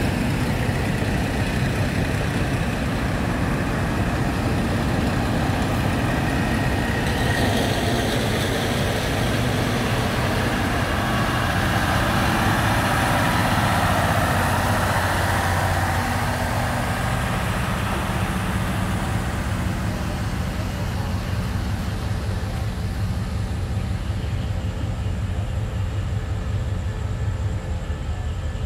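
Diesel railcar engine running as a KiHa 183 train moves past. The sound swells to its loudest about halfway through, then eases off.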